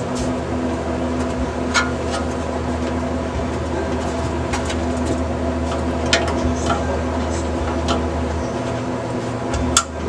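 Scattered sharp metal clicks and light knocks from a box fan's blade hub being worked loose on its motor shaft by hand and with vice grips, over a steady low hum.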